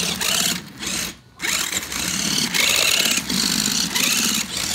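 Toy-grade RC car's small electric motor and gears whirring at full throttle, in a short burst, a brief second one about a second in, then a long run to the end. The throttle is all-or-nothing, not proportional.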